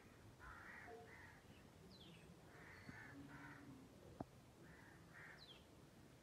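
Faint crows cawing in short pairs, three times, with a thin high falling chirp from another bird now and then. A single sharp click about four seconds in.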